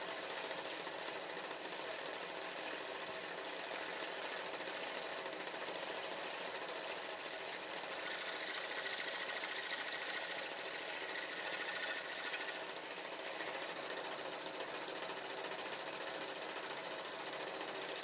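Homemade scroll saw running steadily, its thin up-and-down blade cutting a bird shape out of a wooden board.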